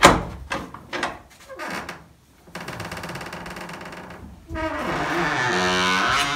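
Wooden stall door on iron strap hinges being opened: a sharp knock at the start, then a rasping creak that turns into a loud, wavering, gliding creak from the hinges as the door swings.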